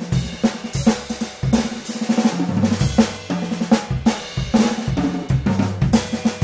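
Background music: a drum-kit beat of snare, kick and cymbals over a held bass line, at a steady tempo.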